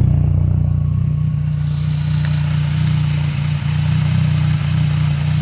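Car engine idling steadily, a low even hum, with a broad hiss building up from about a second in.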